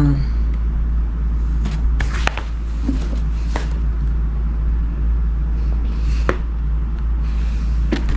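Steady low rumble, with a few brief paper rustles and light taps from the pages of a workbook being turned and handled.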